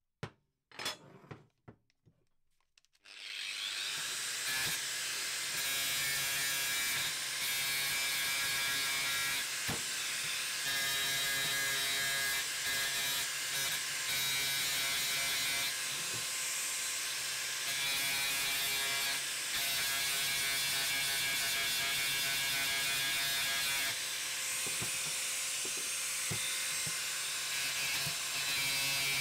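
Angle grinder with a cut-off disc starting up about three seconds in after a few handling clicks, then running steadily with a whine as it cuts through a metal motorcycle tail bracket.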